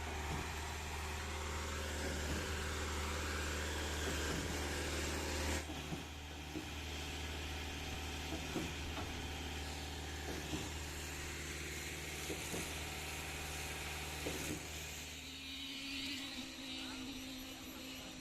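Diesel-driven concrete pump running steadily, with a knock about every two seconds as the pump strokes concrete through the line. About fifteen seconds in, the deep engine drone drops away and a steadier, higher hum remains.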